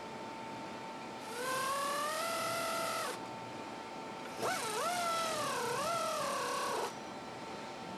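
Power wrench running in the clutch cover's mounting bolts: two runs of a couple of seconds each, a hissing whine that rises as the tool spins up, the second run dipping and wavering in pitch.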